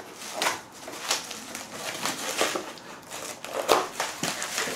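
Cardboard packaging and plastic bubble wrap rustling and crinkling in irregular bursts as a parcel is unwrapped by hand.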